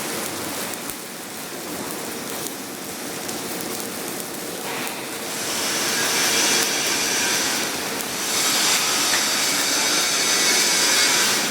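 Stick (SMAW) arc welding on a 6-inch carbon steel pipe: a steady crackling hiss from the arc. It is quieter for the first few seconds and grows louder about halfway through.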